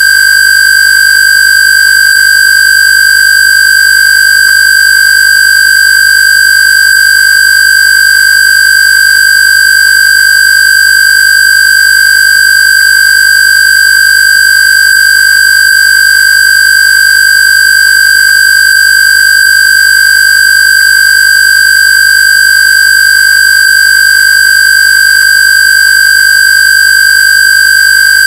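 Electronically generated square-wave tone, a Rife-frequency tone, held at one loud, steady, high pitch with a buzzy edge from its overtones and no change in pitch or level.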